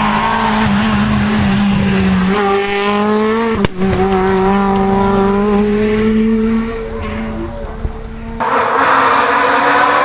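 Renault Clio R3 rally car's engine held at high revs as it passes flat out on a tarmac stage, with one sharp crack just under four seconds in, then fading away. Abruptly, about eight and a half seconds in, a second rally car's engine takes over, rougher and louder.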